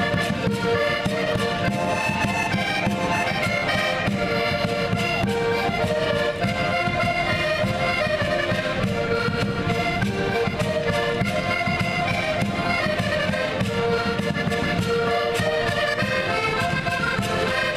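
Portuguese folk ensemble of several diatonic button accordions (concertinas) playing a traditional tune together, with a bass drum keeping a steady beat.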